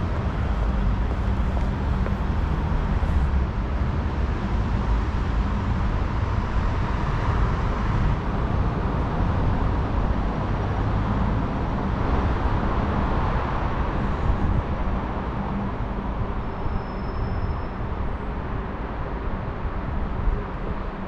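Steady outdoor city traffic noise with a heavy low rumble.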